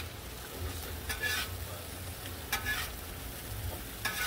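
Butterflied bratwursts sizzling on a Blackstone flat-top griddle while a metal spatula presses them flat, with three short scrapes of the spatula on the griddle about a second and a half apart.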